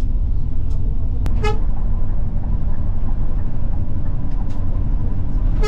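Steady low rumble of a Scania K410 double-decker coach running at road speed, heard from inside the bus. A short horn toot sounds about a second and a half in and another near the end.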